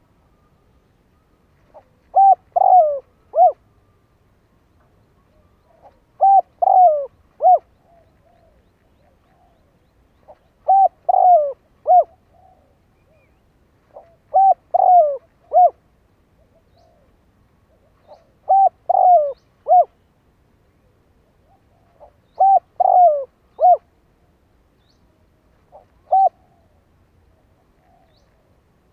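Spotted dove cooing: a phrase of three or four short coos repeated about every four seconds, seven times, the last one shorter. It is the call of a decoy dove used to lure wild doves.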